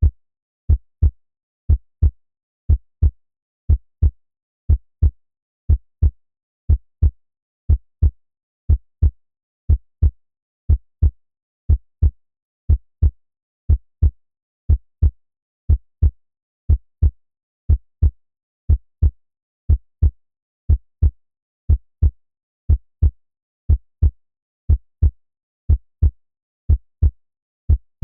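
Heartbeat: a steady lub-dub, two low thumps close together repeating about once a second.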